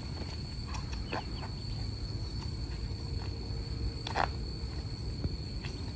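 Steady high-pitched insect drone, like crickets or cicadas, over a low rumble, with a short knock about four seconds in.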